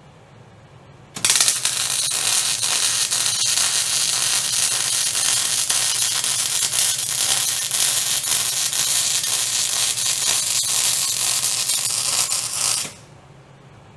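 MIG welder laying one continuous bead on steel: a steady frying crackle of the arc that starts suddenly about a second in and cuts off sharply near the end, over a low steady hum.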